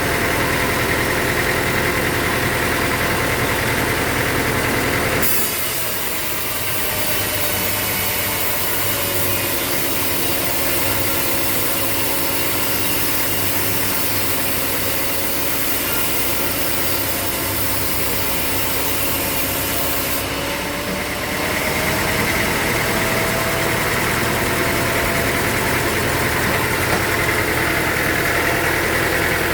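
Sawmill machinery running with a steady engine-like drone. The sound changes abruptly about five seconds in, to a set of steady tones with a slight slow glide, and changes back about twenty seconds in.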